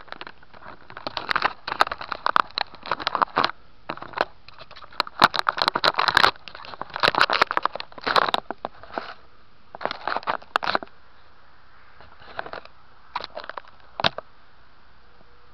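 Handling noise on the seaplane's small onboard camera: fingers rub and bump against its case and microphone in irregular crackling scrapes and clicks. The scrapes come thick at first and thin out in the second half. The motor is not running.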